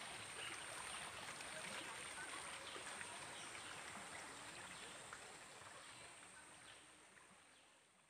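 Faint running water of a spring-fed pool, with a steady high whine and small chirps over it, fading away over the last few seconds.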